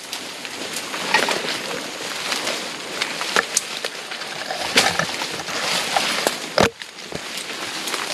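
Footsteps rustling and crackling through forest undergrowth and leaf litter, with irregular sharp snaps of twigs and debris. There is one heavier thump about two-thirds of the way through.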